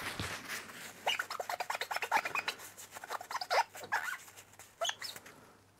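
A cloth rubbing and squeaking on a small round gauge glass as it is wiped clean with methylated spirits, in quick short strokes. There is a click at the very start.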